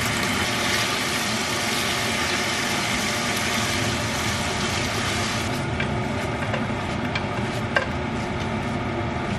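Orange chicken and its sauce sizzling in a hot frying pan over a steady low hum, while a spatula stirs it. The sizzle eases about five and a half seconds in, and a few light clicks of the spatula against the pan follow.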